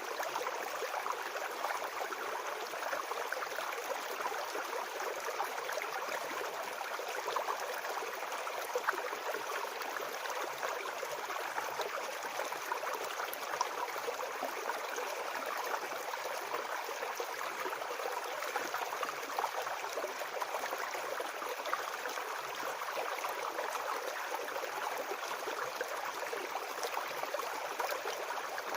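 Small forest brook babbling and gurgling over stones, a steady run of water.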